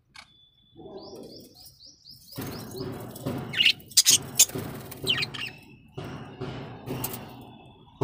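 A flock of budgerigars chirping and warbling. A thin whistle and a quick run of repeated high chirps come first, then from about two seconds in a busier chatter of many overlapping calls.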